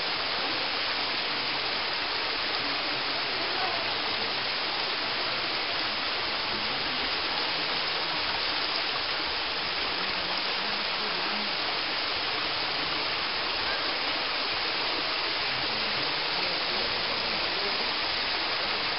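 Mountain stream running over rocks: a steady rushing of water.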